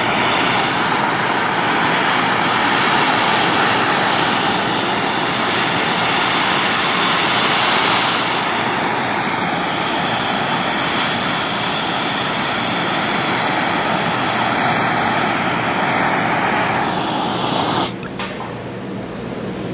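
Gas torch flame burning with a steady hiss as it heats raw steel to bring up blue and brown temper colours; the hiss cuts off abruptly about a second before the end, leaving a quieter low background.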